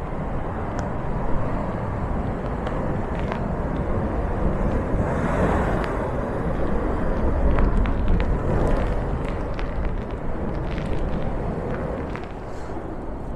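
Heavy storm waves crashing and surging in, a continuous roar of surf that swells about five seconds in and again a few seconds later.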